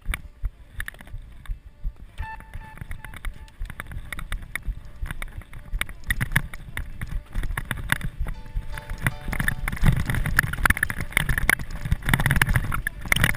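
Downhill mountain bike rolling down a dirt forest trail, heard from the bike: tyres on dirt with a constant run of knocks and clatter from the bike over bumps. It builds from about six seconds in and is loudest in the last few seconds as speed picks up.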